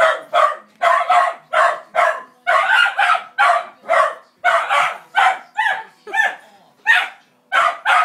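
A dog barking rapidly and without let-up, about two to three high-pitched barks a second.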